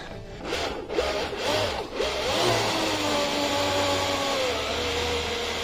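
The twin electric motors of a DIY electric surfboard's water-jet drives, drawing water through the jets. They are revved in short bursts, then held as a steady rush of water with a motor whine that drops slightly in pitch near the end.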